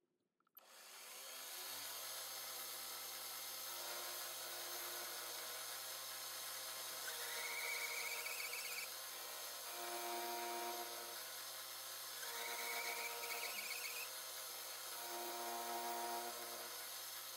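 Milling machine spindle starting about half a second in and spinning up to a steady hum, then an end mill cutting into an aluminum block. The cutting noise swells every few seconds as the cutter is fed down, with a short squeal rising slightly in pitch on several of the cuts.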